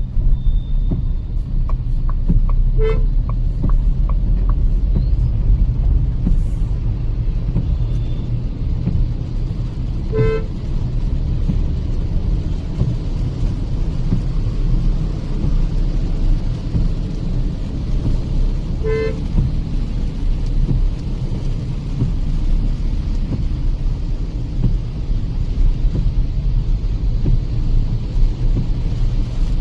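Kia Seltos petrol driving along a highway, its road and engine noise a steady low rumble, with three short car-horn toots spread several seconds apart.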